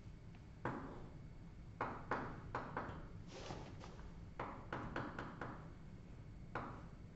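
Chalk writing on a blackboard: about a dozen irregular short taps and scratchy strokes as words and a sketch are drawn, over a steady low room hum.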